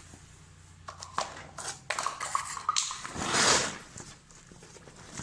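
Metal parts clinking and knocking as a washing machine gearbox and drum are handled, with a louder scraping rustle about three seconds in.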